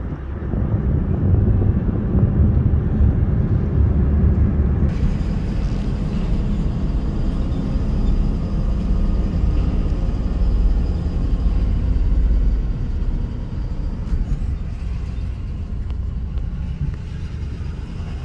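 Hotshot pickup truck driving, its engine and tyres making a steady low rumble heard from inside the cab. The deepest part of the rumble eases about two-thirds of the way through.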